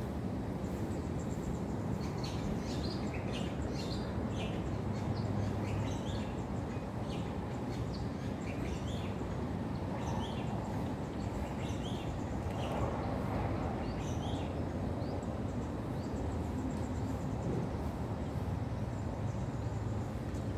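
Outdoor ambience: a steady low rumble, with small birds chirping in many quick, short, high calls. The chirps stop about two-thirds of the way through, leaving only the rumble.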